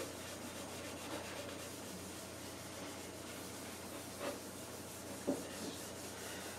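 Faint rubbing of a Scotch-Brite pad working hard wax oil finish into an end-grain wooden butcher block. Two brief soft clicks come about four and five seconds in.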